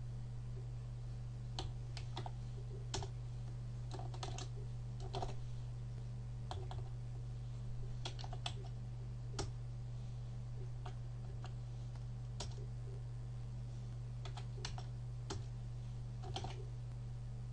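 Computer keyboard being typed on: irregular key clicks, single and in quick little runs, over a steady low hum.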